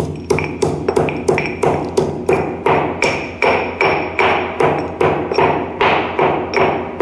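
Stone pestle pounding sugar and cardamom in a heavy stone mortar: sharp, regular knocks, about three a second.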